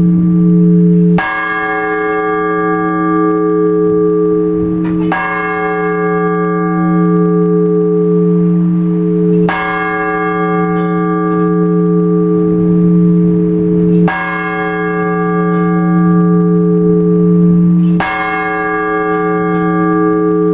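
A large Orthodox church bell tolled in single slow strokes, five strikes about every four seconds, its deep hum ringing on unbroken between them. This is a one-bell ringing in the manner of the blagovest, which calls the faithful to a service.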